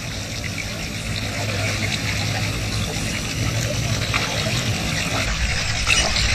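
Wetland water ambience: a steady, gentle trickling and lapping of water with a few faint clicks, growing a little louder near the end.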